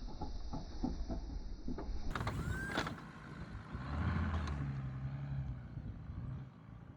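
Snowplow pickup truck running with a low rumble. There are scattered knocks and clatter in the first couple of seconds, and a steady low hum from about four seconds in.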